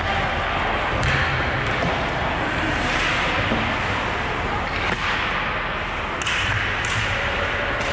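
Ice hockey play: a steady hiss of skates and rink noise, with several sharp clacks of sticks and puck spread through.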